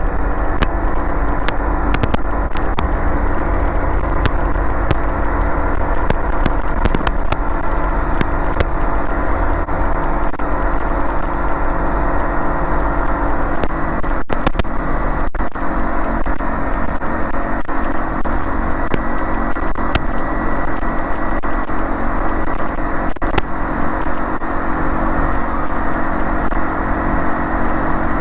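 Light aircraft engine running steadily at takeoff power, a constant drone heard inside the cockpit, with occasional faint clicks.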